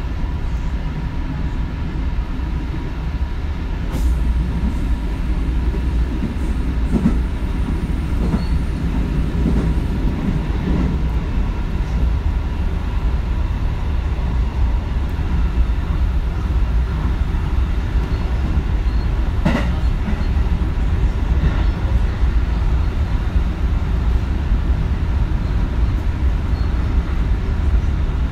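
A JR West 221 series electric train running on the Nara Line, heard from inside the car: a steady low rumble of wheels on rail, with a sharp click about four seconds in and another about twenty seconds in.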